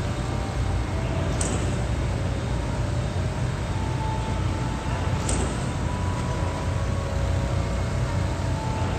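Steady low rumble of city traffic, with faint drawn-out higher tones now and then.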